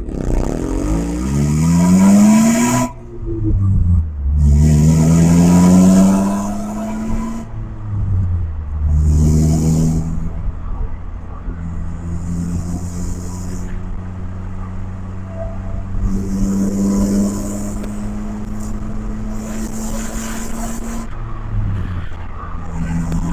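1991 Honda Accord's four-cylinder engine pulling hard through the gears on a manual gearbox: the note rises, breaks off at an upshift about three seconds in, and rises again. It then holds a steady note at cruising speed and drops lower near the end.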